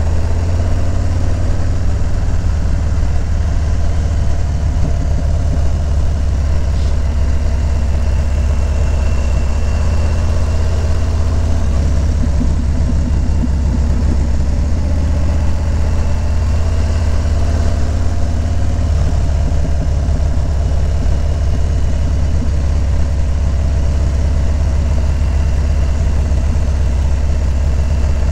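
Harley-Davidson Low Rider S's V-twin engine running steadily, a constant deep rumble.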